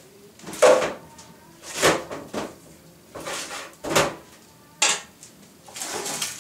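Kitchen utensils and cookware being handled: a wooden spoon and steel pot knocking and scraping, with rustling, in about seven short bursts, the loudest about half a second in.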